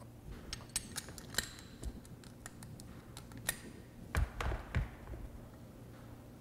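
Half-inch socket wrench and a wrench loosening the bolts on a grinder pump's control cover: scattered metal clicks and ticks, a quick run of them in the first second and a half, then a sharp click and two dull knocks past the middle.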